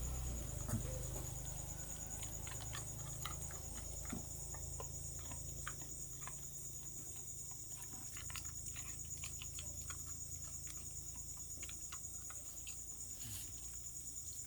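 A dog eating dry kibble: irregular small crunches and clicks, scattered and uneven.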